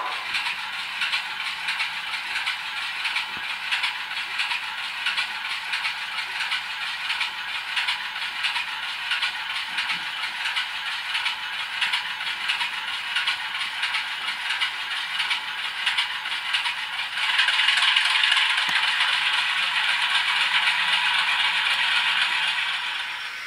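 Model diesel locomotive running slowly along the track with a steady, fine rattling clatter. The clatter gets louder about 17 seconds in and eases off near the end.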